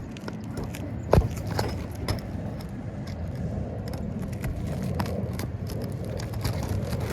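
Hand tools working on asphalt roof shingles and their nails: light clicks and scrapes, with one sharp knock about a second in, over a steady low rumble.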